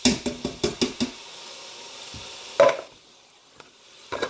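Drained canned vegetables being knocked out into a pot of browning sausage and ground beef: a quick run of about seven sharp knocks on the pot in the first second over steady sizzling. One louder knock comes near three seconds in, and the sizzle then drops away.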